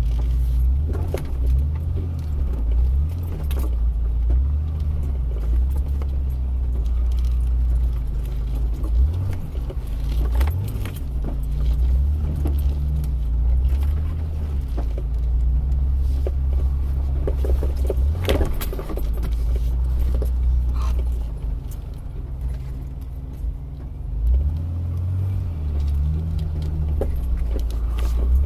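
Vehicle driving over a rough, snowy road, heard from inside the cab: a steady low engine and road drone with constant small rattles and jingling, and a few sharper knocks over bumps.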